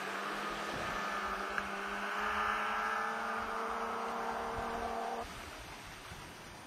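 Snowmobile engine running steadily, its pitch rising slightly, then cutting off about five seconds in.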